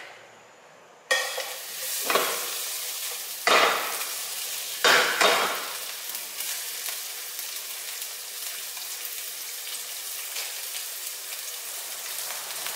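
Sliced red onion and garlic dropping into hot cooking oil in a nonstick pan. They start sizzling suddenly about a second in. A few strokes of the spatula stir them, then the sizzle goes on steadily.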